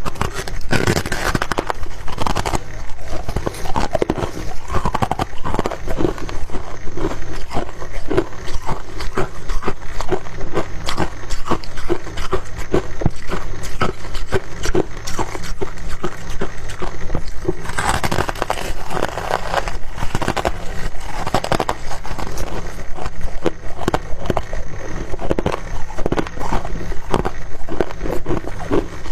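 Refrozen freezer frost being crunched close to the microphone: a dense, continuous run of crackling crunches, louder for a few seconds just past the middle.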